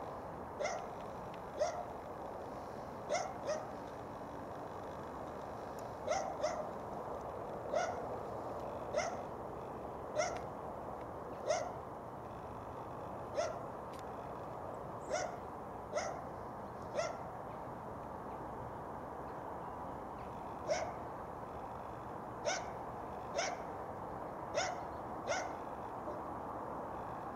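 Short animal calls repeated about twenty times at irregular intervals, sometimes in close pairs, over steady background noise.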